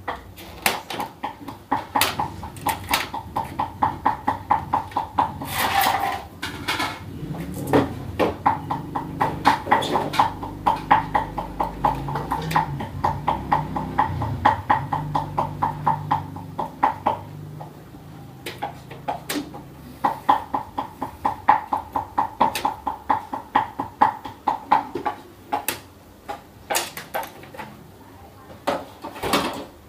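Clicks and knocks of the plastic and metal parts of an HP LaserJet Pro MFP M26a printer being handled and worked with a screwdriver during disassembly, with stretches of fast, even ticking.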